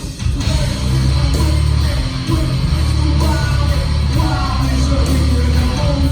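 Loud live heavy rock band playing, with distorted guitars, bass and drums under a shouted vocal, heard through a room recording.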